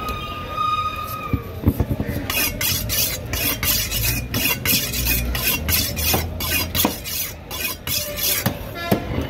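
Fast rasping strokes, about four a second, of a large knife working through cobia flesh and skin on a wooden chopping block. A steady high whistle-like tone is heard for about the first second.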